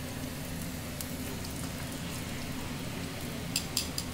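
Sweet potato sticks deep-frying in oil in a stainless steel pan: a steady sizzle of heavy bubbling, the many bubbles a sign the slices are still raw. A few light clicks of tongs near the end.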